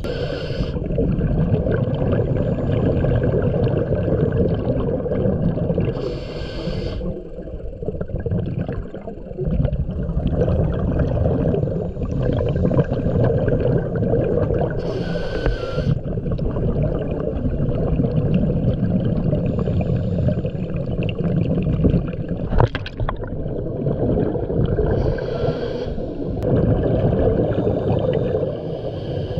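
A scuba diver breathing through a regulator, heard underwater: a short hiss of each inhalation, four times, with long stretches of rumbling exhaust bubbles in between.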